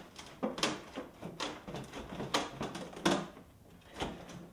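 Irregular knocks and clunks of the Vectrix's plastic-cased NiMH battery pack being handled and shifted in its battery bay by hand, about five or six separate knocks spread over a few seconds.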